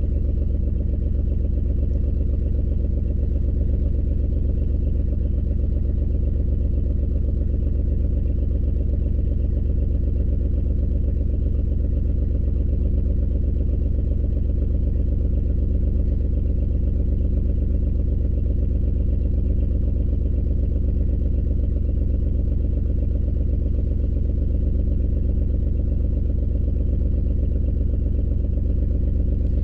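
2003 Ford Escape engine idling steadily with a constant misfire on cylinder 4.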